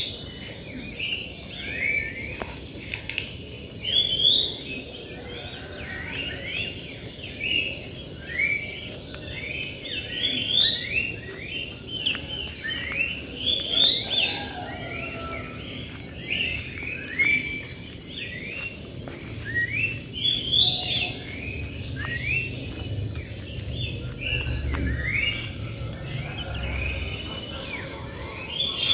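Wild birds singing: a busy chorus of short, quick chirping notes from several birds, over a steady high insect drone. A low rumble joins in during the last third.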